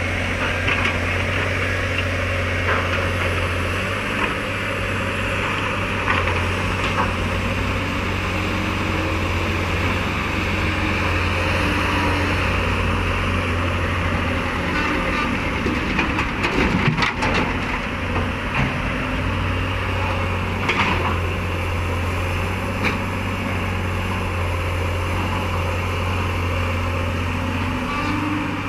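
Heavy diesel engine of a Komatsu PC 200 excavator running steadily with a deep hum, with scattered knocks and a cluster of clunks about halfway through.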